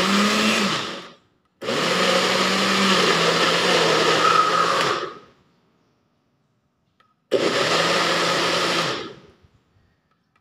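Bullet-style personal blender pulsed by pressing the cup down, chopping watermelon, banana and spinach into a smoothie: one run stops about a second in, a longer one lasts about three and a half seconds, and a third of about two seconds comes past the middle, each winding down when the cup is released. It is pulsed gently in short presses so the fruit does not turn fully liquid.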